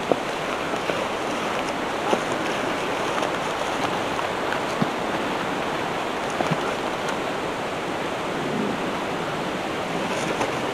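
Steady rushing noise of running water, with a few faint ticks.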